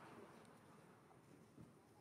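Near silence: faint background hiss with one soft low knock.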